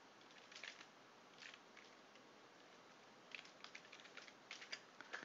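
Faint computer keyboard keystrokes: a few scattered clicks, then a quicker run of them from about three seconds in.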